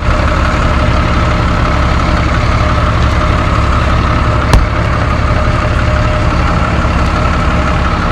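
Diesel truck engine running steadily at low speed, with a deep rumble under a steady hum, as the truck rolls slowly over the gravel to pack it down. A single sharp click about four and a half seconds in.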